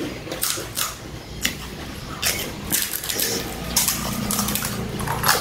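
Crisp pani puri shells cracking as fingers poke them open and they are crunched in the mouth: a string of short, sharp crackles spaced unevenly.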